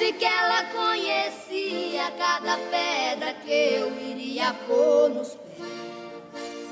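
Boys singing a song with a piano accordion playing chords beneath them; the accordion is a Todeschini. About five and a half seconds in the singing stops and the accordion holds a chord alone.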